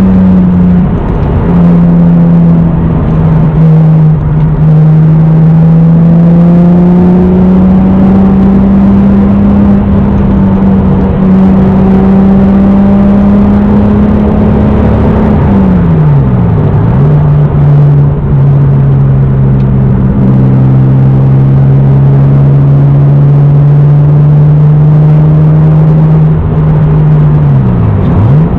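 Naturally aspirated 3.0-litre inline-six (2JZ-GE) of a 1993 Toyota Supra with an aftermarket exhaust and K&N intake, heard from inside the car while driving, the engine note steady and slowly rising under light throttle. About halfway through and again near the end the revs drop sharply and pick back up at a lower pitch: gear changes on the manual gearbox.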